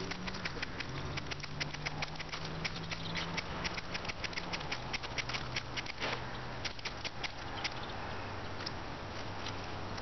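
Ferro rod scraped hard and fast with a steel striker, a quick run of short rasping strikes, several a second, throwing sparks into pine-gum-coated wool tinder. The strikes thin out after about six seconds.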